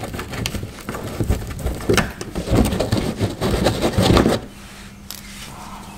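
Plastic wheel-well liner and its screw being worked by hand with a Phillips screwdriver: a run of scraping, crackling and clicking that stops about four seconds in, leaving a faint low hum.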